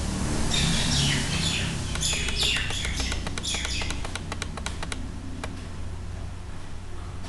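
Computer mouse clicking in a quick run of sharp clicks, from about two seconds in until just past halfway, with birds chirping in the first half over a steady low hum.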